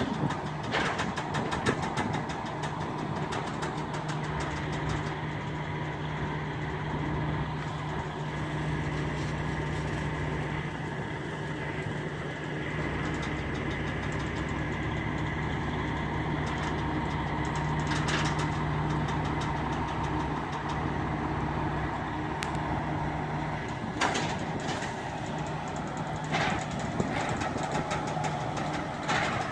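Semi tractor engine idling while the hydraulic system of a Cottrell 5309 car-hauler trailer works its decks: a steady hum that drops out briefly about three-quarters of the way through and comes back, with a few sharp metallic clunks.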